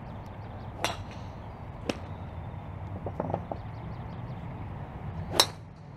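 Driver club striking a golf ball off the tee: one sharp crack near the end, the loudest sound. Two fainter clicks come in the first two seconds, over a steady low background hum.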